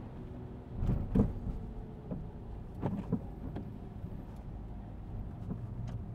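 Steady low engine and road rumble heard from inside a car driving slowly. A few brief louder knocks come through about a second in and again about three seconds in.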